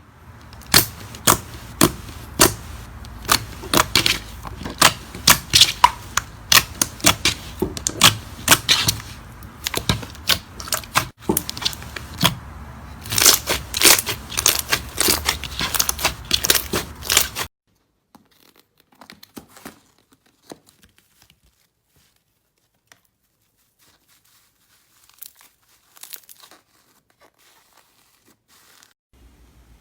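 Slime being pressed and poked close to the microphone, giving a dense run of sharp pops and crackles. About two-thirds of the way through, the sound drops abruptly to a few faint clicks.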